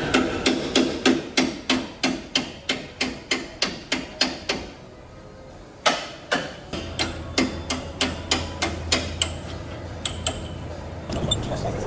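Hammer blows on metal: a steady run of strikes, about three a second, that stops about four and a half seconds in. After one more strike, a second run follows, and a few scattered blows come near the end.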